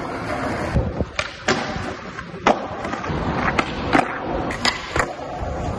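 Skateboard wheels rolling over rough pavement, broken by a series of sharp clacks as the board is popped and lands on the ground during flatground tricks.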